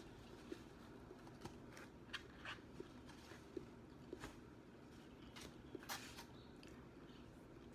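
Faint chewing and crunching of breaded hot and spicy fried chicken wings, an irregular scatter of small crisp clicks.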